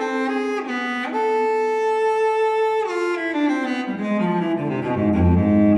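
Slow, calm instrumental music in a bowed-string sound: a long held note, then a melody falling step by step into low cello and double-bass notes near the end.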